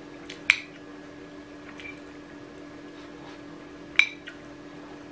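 Metal spoon clinking and scraping against a ceramic plate while scooping rice: two sharp clinks with a short ring, about half a second in and near the end, with lighter taps between. A steady low hum runs underneath.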